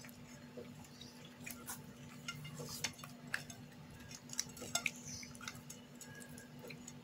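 Faint, scattered taps and soft clicks of raw whole mackerel being shifted and laid out by hand on a glass plate, over a low steady hum.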